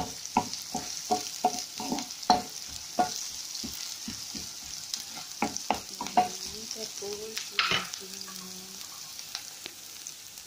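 Diced red onion and garlic sizzling in hot oil in a nonstick frying pan, stirred with a wooden spatula. The spatula taps and scrapes against the pan about three times a second for the first few seconds and again around six seconds in, over a steady sizzle.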